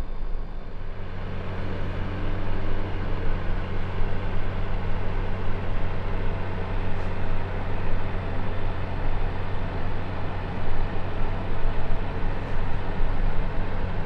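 Ebac 3850e compressor dehumidifier running: a steady low hum under the rush of its fan. About a second in the sound grows fuller and louder as the fan moves from speed 1 to the higher speed 2, then holds steady.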